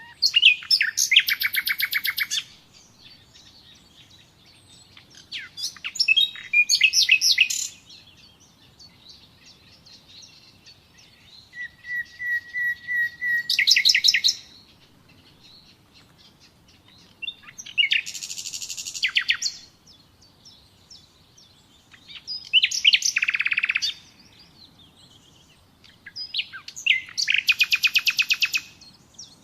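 Nightingale singing: six short phrases of fast repeated notes and trills, each about two seconds long, with pauses of a few seconds between them. One phrase, near the middle, starts as a run of soft steady piping notes and breaks into a loud trill.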